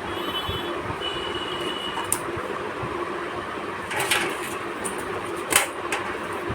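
Steady background noise with a few sharp clicks and knocks, about two seconds apart, from hands working on a desktop PC cabinet, the last click the loudest.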